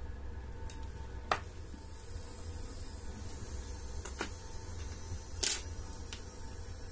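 A few short metallic clicks and taps as a watch movement in its metal movement holder is handled and turned on the bench. There are four in all: one a little over a second in, a close pair around four seconds, and the loudest about five and a half seconds in. They sit over a low steady hum.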